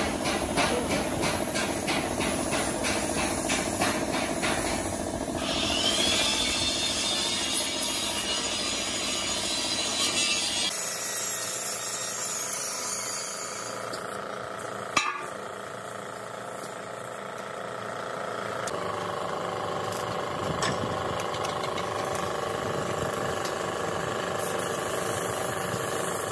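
Compressed-air paint spray gun hissing as it sprays the truck cabin, with rapid repeated hammering on metal in the first few seconds and a single sharp knock about halfway through.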